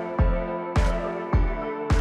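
Background music with a steady beat: electronic-sounding drum hits about twice a second over sustained synth chords.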